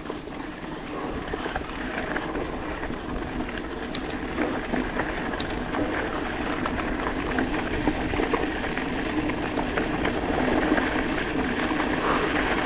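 Canyon Grand Canyon AL SL 9.0 aluminium hardtail mountain bike rolling at speed on a gravel track: a steady rush of tyre noise on gravel with the rattle of the bike. A faint, high, steady tone joins about seven seconds in.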